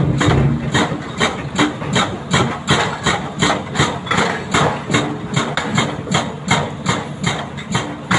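Excavator-mounted hydraulic rock breakers hammering hard rock: a rapid, slightly uneven run of sharp impacts, about three to four a second, over the steady running of the excavator engines.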